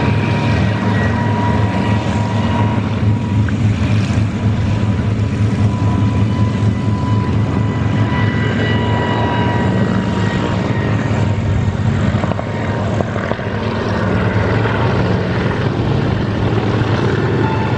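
Kamov Ka-26 coaxial-rotor helicopter in display flight, its twin radial piston engines and rotors giving a steady low drone with a thin whine over it that drifts slightly in pitch. The sound dips briefly about twelve seconds in, then comes back.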